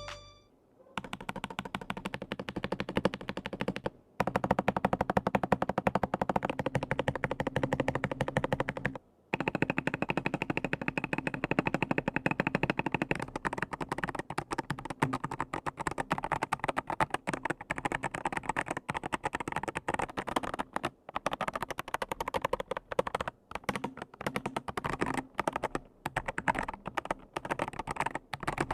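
Fast typing on an Akko PC75B Plus mechanical keyboard fitted with PBT MDA-profile keycaps: a dense, continuous run of key clacks, broken by two brief pauses about four and nine seconds in.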